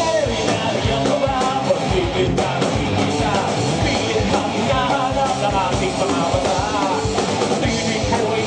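Live rock band playing: a male singer sings over electric guitars and a drum kit.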